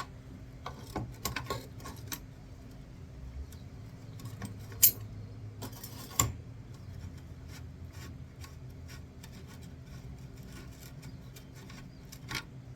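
Vise-Grip locking pliers clicking and clinking against a metal fitting as it is worked off a car radiator, with two sharper metallic knocks about five and six seconds in and another near the end. A steady low hum runs underneath.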